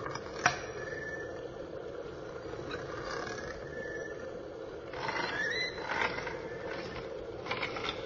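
Designed torture-chamber horror ambience: a steady low drone under scattered metallic mechanism noises. A sharp clank comes about half a second in, then brief squeaky creaks, and a burst of scraping and rattling about five seconds in.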